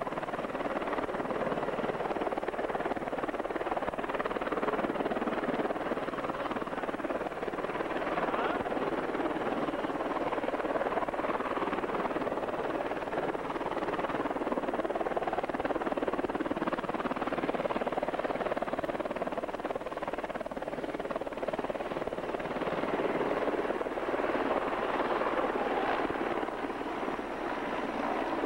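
Sikorsky S-64 Skycrane heavy-lift helicopter overhead, its rotor and twin turbine engines running with a steady, loud noise.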